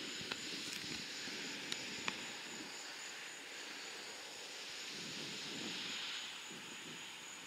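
Distant jet roar of a C-17 Globemaster III's four turbofan engines as it flies overhead, a steady rushing hiss with a few sharp clicks in the first two seconds.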